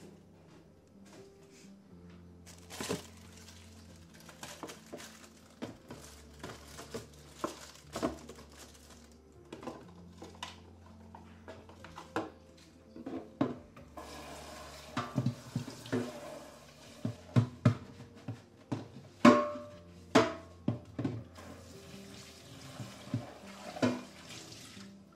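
A tap running for several seconds in the middle, with scattered clinks and knocks of household items being handled, the loudest about two-thirds of the way through. Soft background music with slow chord changes plays under it.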